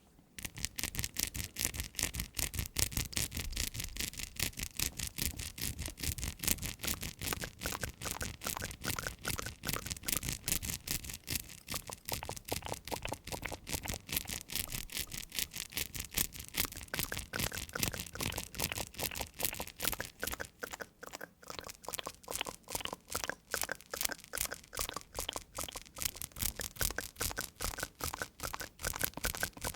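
Rapid, even scrubbing or brushing strokes, several a second, with a brief lull about 21 seconds in.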